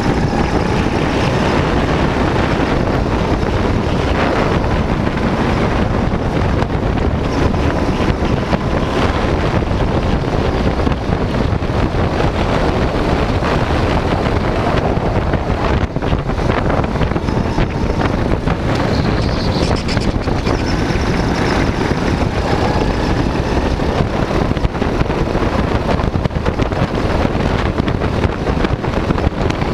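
Go-kart engine running at speed, heard through an onboard camera, under heavy wind buffeting on the microphone.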